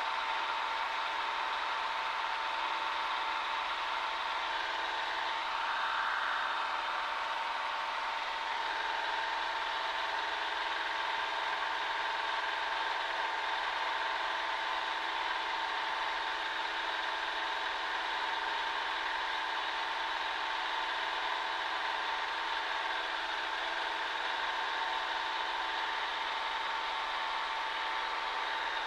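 Cessna 140A's four-cylinder piston engine and propeller running steadily, heard from inside the cockpit as an even drone with a strong steady tone in it.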